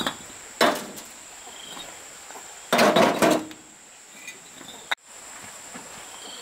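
A few knocks of building work, like a hammer or tool striking wood: one at the start, one about half a second in, and a longer clatter around three seconds in. A steady high insect drone, like cicadas or crickets, runs behind.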